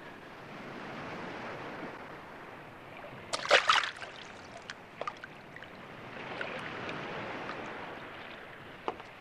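Water sloshing as a man wades chest-deep through a flooded stone passage, over a steady wash of moving water. There is a burst of splashes about three and a half seconds in, and a few small splashes or drips later.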